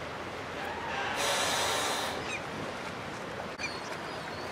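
Wind buffeting the microphone over choppy river water, with a louder rushing gust for about a second near the start. A few faint bird calls come through.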